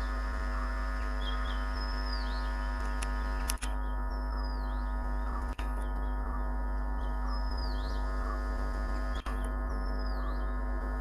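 A steady droning hum, even and unchanging. A short bird-like call repeats above it every two seconds or so.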